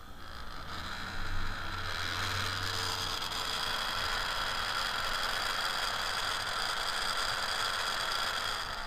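Heat gun's small 12-volt DC fan motor and blower wheel running, a steady whir with a high whine, spinning up over the first second or so. The motor works.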